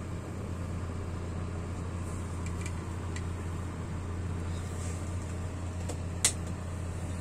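Chinese Model 2608 kerosene stove burning with a blue flame: a steady low hum. There are a few faint ticks, and one short sharp click about six seconds in.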